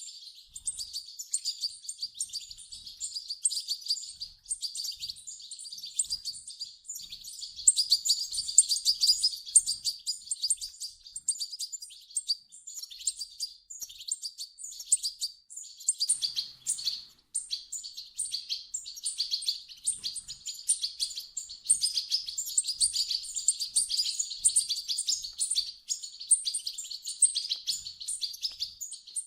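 European goldfinch chicks calling: a dense, continuous run of rapid high-pitched chirps, thinning briefly about halfway through.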